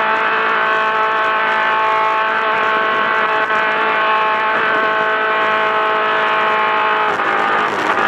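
Class 10 off-road race car's engine running at a steady, high speed. About seven seconds in, the steady note breaks up and turns rough as the engine speed changes.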